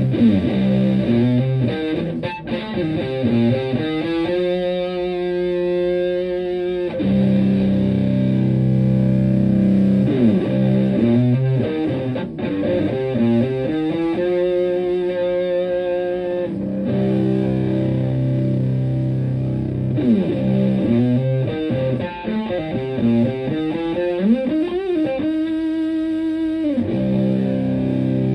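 Electric guitar played through an Elk Super Fuzz Sustainar fuzz pedal into a tube amp: thick, sustaining fuzz tone on chords and single notes, with notes bent up and down and several chords held for a few seconds.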